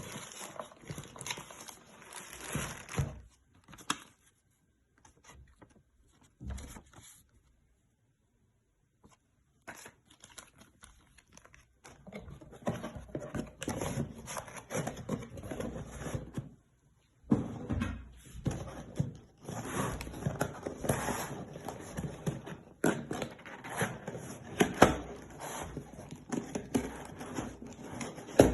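Packaging rustling and crinkling, with irregular knocks and clunks of engine parts being handled and unpacked, and a short silent pause about eight seconds in.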